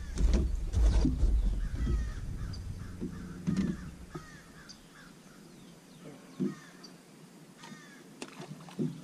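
Low knocks and bumps on the boat in the first two seconds. Then a bird calls over and over in short, harsh calls, in a cluster about two to four seconds in and again near the end.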